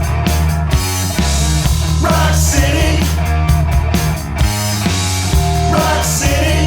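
Rock band playing a song: a steady drum beat under bass and guitars, with a short bending melodic phrase coming round about every four seconds.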